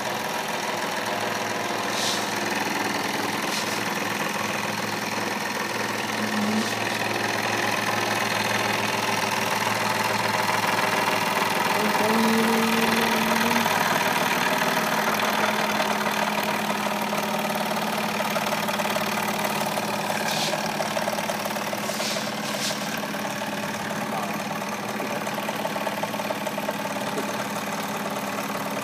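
Toy live-steam stationary engine running steadily, its flywheel spinning: a continuous hiss and mechanical rattle with a few sharp ticks, and a faint steady hum joining about halfway through.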